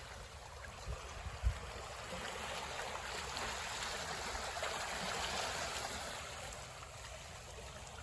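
Small waves washing into a fishing-port harbour: a steady wash of water that swells over a few seconds and then eases off.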